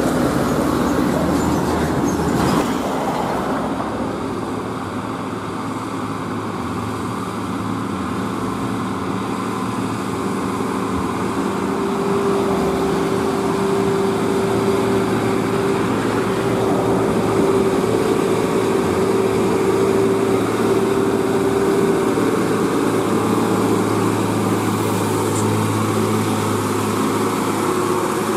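Diesel engines of heavy tanker trucks working up a hill grade. One truck pulls away early on, then another approaches with a steady engine drone that grows louder as it passes close by near the end.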